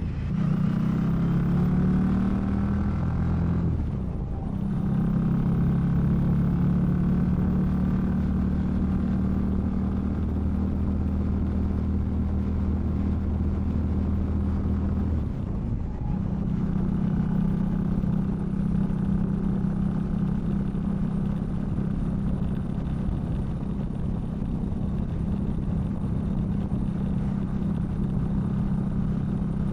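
Indian Scout V-twin motorcycle engine running steadily on the road, heard muffled from inside a saddlebag. The engine note dips briefly and settles into a new steady pitch twice, about four and about sixteen seconds in.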